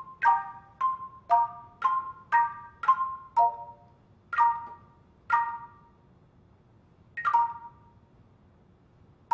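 Handbell choir ringing chords, about two a second at first, then slowing to a few spaced chords and a final chord that rings and fades away.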